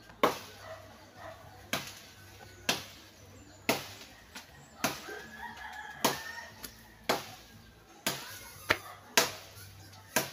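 A blade chopping into a broken tree branch: about ten sharp blows, roughly one a second.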